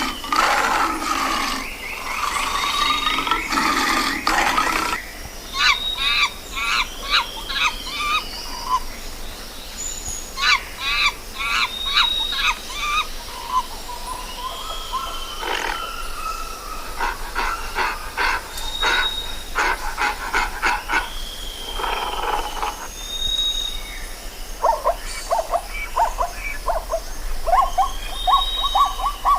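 Wild animal calls: repeated runs of short, high-pitched calls in quick series, mixed with longer whistled notes that rise and fall, coming in bouts with short pauses between.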